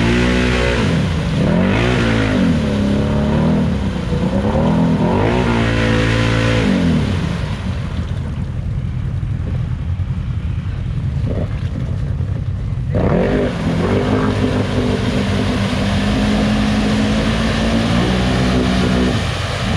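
ATV engine revving up and down several times, then dropping to a low rumble for several seconds, then running steadily at higher revs.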